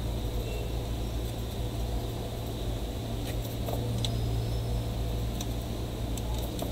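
Steady low background hum with a few faint clicks and taps from about three seconds in, as a small circuit board is handled on a workbench.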